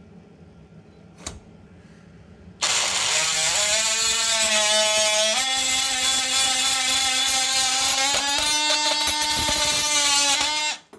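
Oscillating multi-tool cutting through a copper water pipe inside a wall: a loud buzzing whine that starts about two and a half seconds in, steps up in pitch a few times as the blade works through, and stops just before the end.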